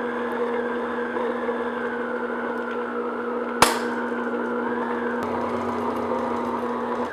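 Stand mixer with a flat beater running steadily on low speed, mixing flour into creamed butter and sugar until the shortbread dough starts to clump. One sharp knock about halfway through, and the motor cuts off at the very end.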